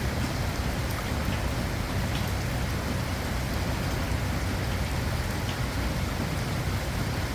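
Steady rain falling and drops hitting a surface, an even hiss with scattered sharper drop ticks.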